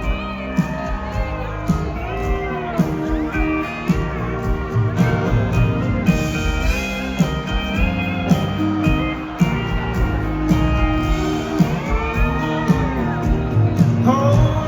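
Live country band playing an instrumental break, with a pedal steel guitar sliding and bending through the lead over bass and drums.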